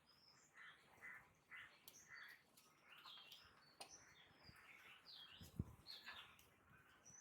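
Faint birds chirping in short, scattered calls, with a soft thump about five and a half seconds in.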